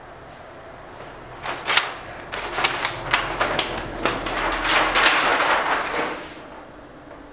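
A large sheet of drawing paper being lifted and flipped back, crackling and rustling loudly for about five seconds with sharp crackles.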